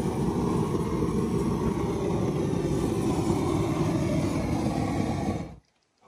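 Handheld gas torch burning steadily as its flame chars a wooden plank; the noise cuts off suddenly near the end.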